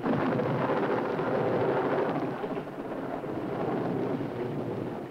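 Rain with a rolling rumble of thunder, coming in suddenly at the start and easing off about halfway through. A sound effect on an old film soundtrack, dull, with no high end.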